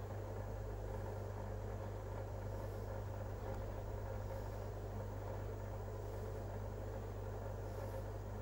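Steady low mechanical hum with a faint hiss, from running aquarium equipment.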